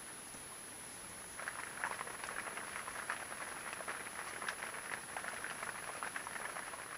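Rain pattering on the fabric awning of an inflatable catamaran: a dense, uneven patter that sets in about a second and a half in, over a steady hiss.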